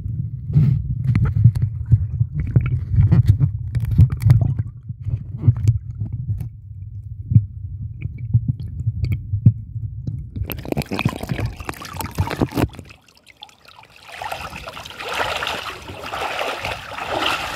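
Muffled low rumble and knocks from a microphone held underwater in a swimming pool. About thirteen seconds in, this gives way to water splashing and sloshing as the camera reaches churning water at the surface.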